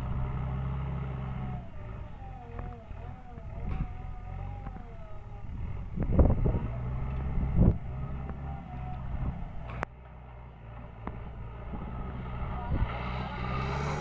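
JCB 3DX backhoe loader's diesel engine running steadily as the machine drives over loose levelled soil, with two heavy low thumps about six and seven and a half seconds in.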